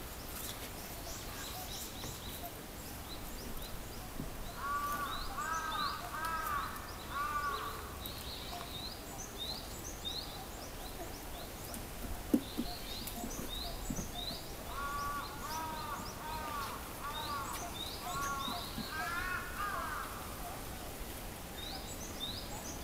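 Birds calling: two runs of loud, repeated arched calls several seconds apart, over scattered high-pitched chirps of smaller birds. A single sharp click about halfway through.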